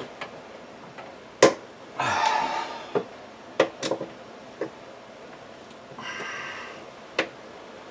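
Sharp clicks and knocks of pliers and a screwdriver on a metal under-cabinet light fixture as a mounting screw is tightened down into the cabinet wood, with two short rushes of noise about two and six seconds in.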